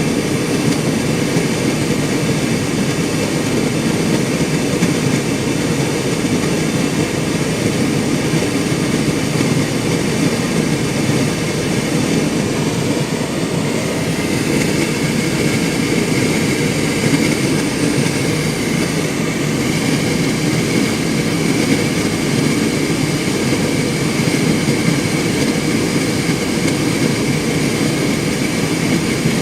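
Hotpoint Ultima S-Line tumble dryer running, its turning drum and fan making a loud, steady drone.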